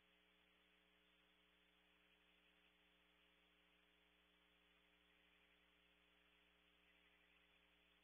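Near silence: a faint, steady mains hum with hiss.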